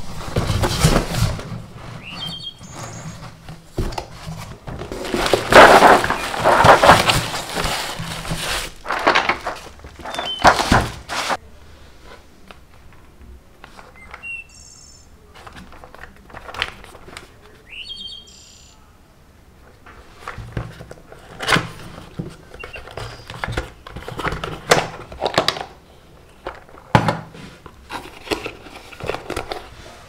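Cardboard and paper packaging being handled: rustling and sliding for about the first ten seconds, then lighter scattered taps and clicks as a small paper box is turned and opened. Birds chirp faintly a few times in the background.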